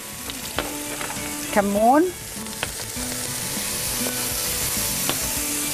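Ground beef sizzling as it fries in a nonstick pan, with a wooden spoon stirring and scraping through it. There are a few light clicks of the spoon against the pan, and the sizzle grows a little louder in the second half.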